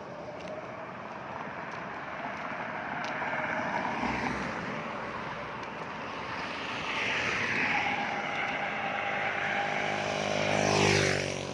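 Road traffic on a highway. A motor vehicle comes closer through the second half and passes close near the end, its engine note dropping in pitch as it goes by.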